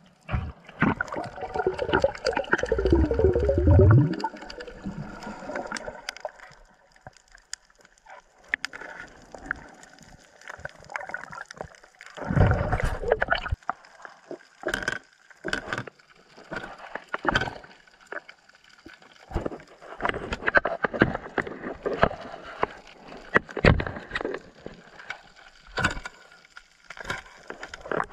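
Underwater sound picked up by a camera during a free dive on a coral reef: gurgling, sloshing water with many scattered clicks and knocks, and two louder rushing bursts, about two seconds in and about twelve seconds in.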